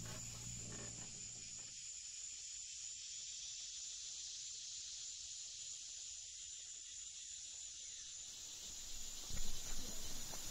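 Faint, steady high hiss of open-field ambience. Near the end come footsteps on loose ploughed dirt.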